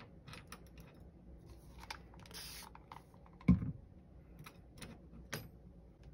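Small clicks and taps of hands and tools working on a cutting mat, with a brief rustle a little before halfway and one louder knock about halfway through.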